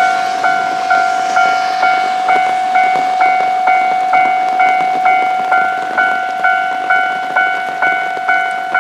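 Japanese railway level-crossing alarm ringing: a sharp electronic ding about twice a second over a steady ringing tone, warning that a train is approaching.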